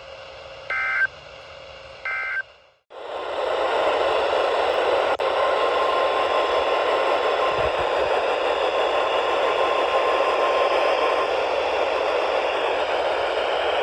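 Two short warbling data bursts from a NOAA Weather Radio receiver: the SAME end-of-message code closing a weekly test. After a brief dropout, loud radio static comes in, with the faint steady 1050 Hz weather-radio warning alarm tone heard through it for about six seconds.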